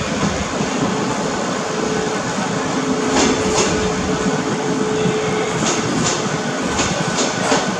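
Taiwan Railways EMU600-series electric multiple unit pulling slowly into a station, its wheels clicking over rail joints several times from about three seconds in, over a steady hum.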